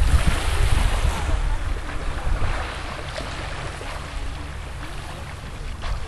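Wind buffeting the microphone, heaviest over the first two seconds or so and then easing, over small sea waves washing on the shore.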